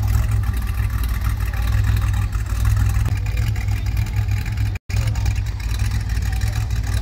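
DeLorean DMC-12's V6 engine running with a steady low rumble. The sound cuts out for a moment about five seconds in.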